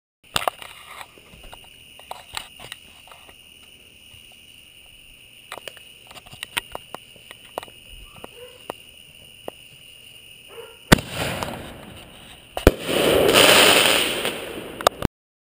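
ShowTime Star Spangled Bangers canister artillery shell fired from its mortar tube: a sharp launch bang, then a second bang as the shell bursts high, followed by about two seconds of loud, dense crackling that cuts off suddenly. Before the launch, scattered faint clicks sound over a steady high tone.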